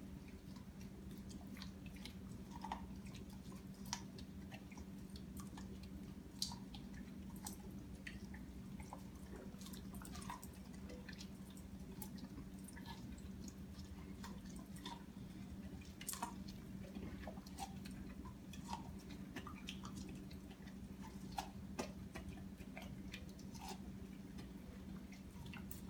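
An Akita chewing and gnawing corn on the cob: faint scattered crunches and wet clicks at irregular intervals, over a steady low hum.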